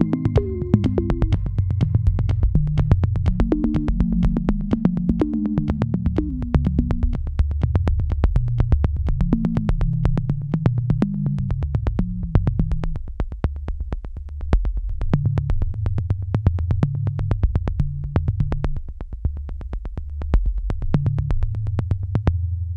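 Electronic background music: a synthesizer bass line moving in steps over a steady, clicking beat.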